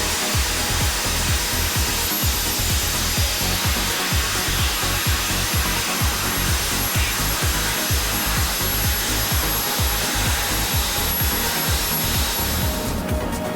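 Drilling rig working with its air compressor: dense, loud hiss and rumble with a fast, uneven run of low thumps. It eases off near the end.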